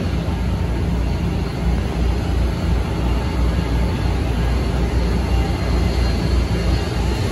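Top Fuel dragster's supercharged nitromethane Hemi V8 running steadily during a warm-up, a loud, low, unbroken rumble.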